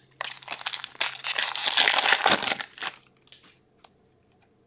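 A trading-card pack's foil wrapper crinkling as it is handled, for about three seconds, then a few faint clicks of cards being handled.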